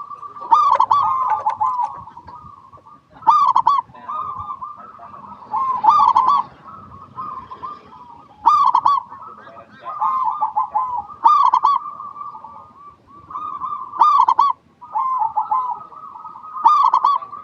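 Zebra dove (perkutut) cooing without pause in repeated rolling phrases, with a louder, ringing note about every two and a half seconds.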